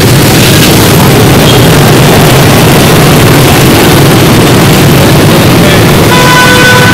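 Loud, steady running of the Honda Win motorcycle's engine amid dense scooter and motorbike traffic. A horn honks near the end, held for just under a second.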